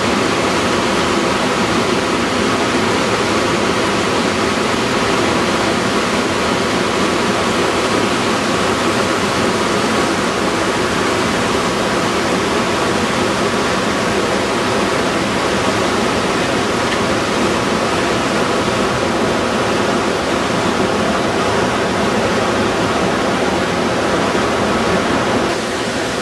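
Steady, loud rush of wind and water from a boat underway, unbroken, easing slightly just before the end.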